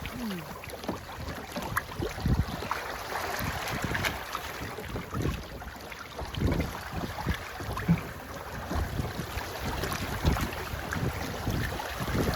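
Wind buffeting the microphone in irregular low gusts, over a steady rush of water and wind aboard a sailboat under way.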